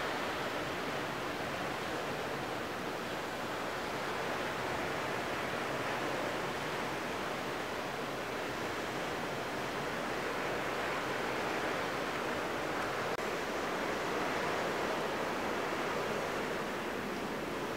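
Steady rushing noise that swells and eases slowly, with no distinct events.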